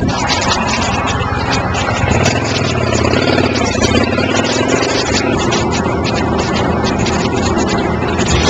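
Motorcycle engine running.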